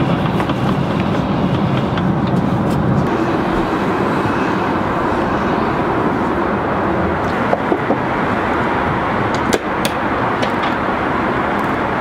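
Steady drone of an airliner cabin in cruise flight, engine and airflow noise, with a few sharp clicks in the second half.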